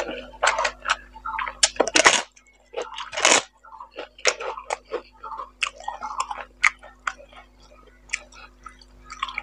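Close-miked eating sounds of rice and boal fish curry being eaten by hand: wet chewing, lip smacks and mouth clicks, with two louder noisy bursts about two and three seconds in.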